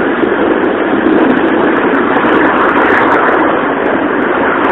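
Steady road noise inside a moving car, a loud, even rush with no distinct engine note.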